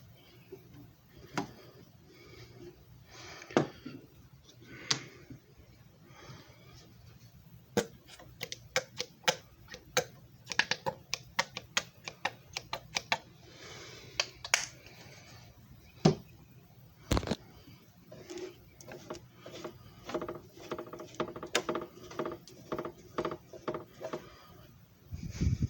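Irregular run of sharp plastic clicks and taps, thick and rapid in places, from the disc repair machine and discs being handled.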